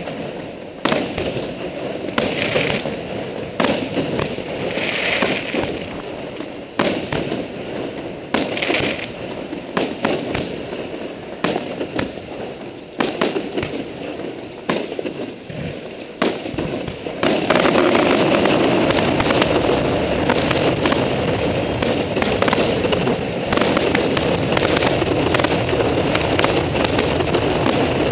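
Aerial fireworks shells bursting with sharp bangs every second or two, then, about two-thirds through, the bursts come thick and fast into a louder, near-continuous barrage of bangs and crackling.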